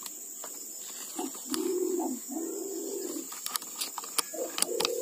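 Green imperial pigeon (pergam) cooing: a series of about four deep, rolling coos, the longest near the middle, with a few sharp clicks near the end.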